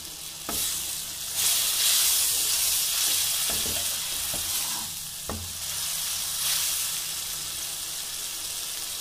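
Spiced onion masala sizzling in hot oil and a little water in a kadhai, stirred with a steel ladle that knocks against the pan four times. The sizzle swells loudest about a second and a half in.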